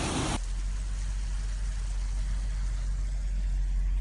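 Rushing floodwater hiss that cuts off suddenly a fraction of a second in, giving way to the steady low rumble of a car driving, heard from inside the cabin.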